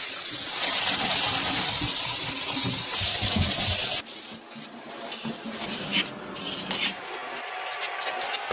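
A loud, steady hiss for about four seconds that cuts off abruptly, followed by quieter, irregular rubbing and scraping workshop noise.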